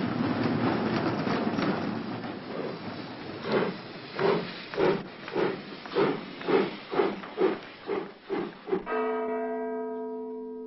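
Train pulling out: a steady rumble and hiss, then wheels clattering over the rail joints in a rhythm that speeds up as the train gathers speed. About nine seconds in, a held chord of music comes in and fades.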